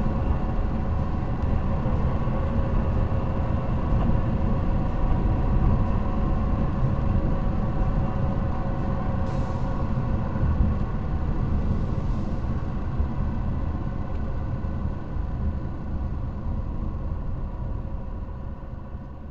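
In-car road and engine noise picked up by a dash cam: a steady low rumble with a faint even drone, fading out near the end.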